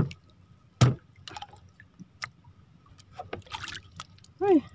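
Heavy thuds on the wooden boards of a small outrigger boat as a freshly caught fish is held down and struck, one right at the start and another about a second in, followed by a few light knocks. A short vocal exclamation near the end.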